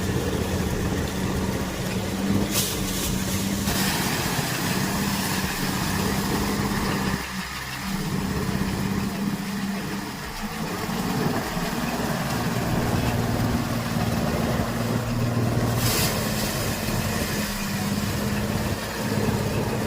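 Engine-driven threshing machine running steadily at a constant speed, with a brief sharp rattle about two and a half seconds in and another near the end.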